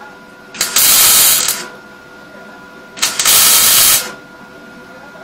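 Semi-automatic MIG welder laying two short tack welds with 1 mm copper-coated СВ08Г2С wire: two bursts of arc noise, each about a second long, the first about half a second in and the second about three seconds in, with a faint steady hum between them.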